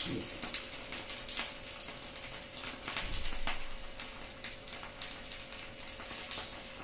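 Quiet kitchen background: a faint steady hum with scattered soft ticks and crackles, a little louder about three seconds in.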